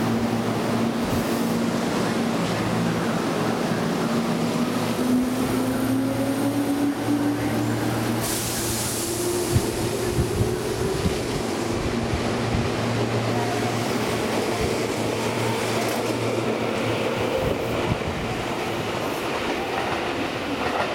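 Tobu 10030-series electric train pulling away and accelerating past the platform. Its traction motors and gears give a whine that climbs slowly in pitch as it gathers speed, over the rumble of the rolling cars, with a burst of hiss about eight seconds in.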